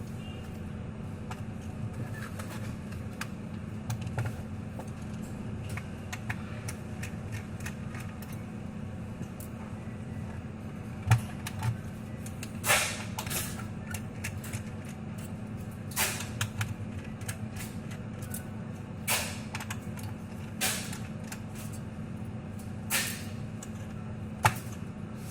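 Scattered clicks, taps and small knocks of a screwdriver and plastic laptop parts being handled while the laptop is taken apart, a few louder ones in the second half, over a steady low hum.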